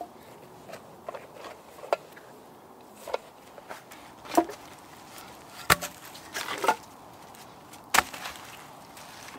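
Old firewood logs set down one at a time on leaf-litter ground, each landing with a sharp wooden knock, several in all, with a brief rustle of leaves in between.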